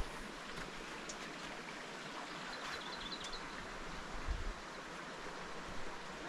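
River water running, a steady rushing hiss.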